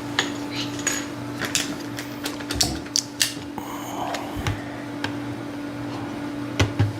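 Hard plastic toy parts clicking and clattering as they are handled, mostly in the first half, over a steady low hum.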